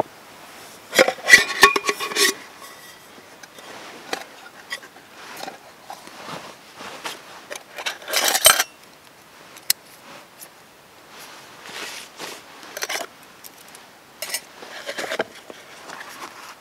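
Metal camping mugs being handled and nested: clinks and scrapes, with a brief metallic ring about a second in and a louder clatter about halfway through, then softer rustling and small knocks as a cloth stuff sack is handled.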